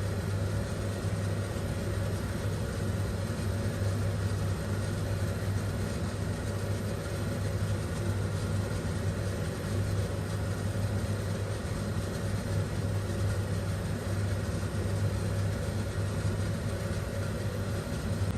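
Steady low hum with a rumble under it and a fainter higher tone over it, the running background of a kitchen while milk cooks on the stove.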